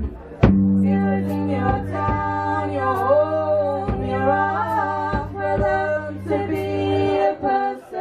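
Live band playing: a sustained electric guitar chord rings under singing, with a sharp hit about half a second in. The low held notes cut out about seven seconds in.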